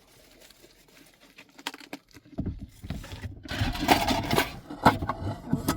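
Quiet at first, then from a couple of seconds in a loud, uneven crackling rustle with small clicks and knocks: food being handled for the frying pan.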